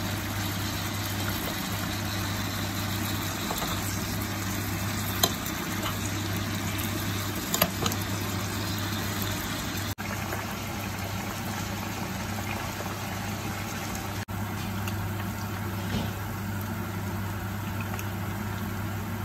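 Food sizzling steadily in a frying pan over a low steady hum, with a few light clicks.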